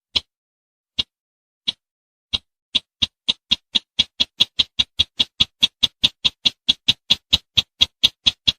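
Call of the bush sintar bird, played as a hunting lure: sharp clicking notes, a few spaced out at first, then quickening about two seconds in to a fast, even series of about five a second.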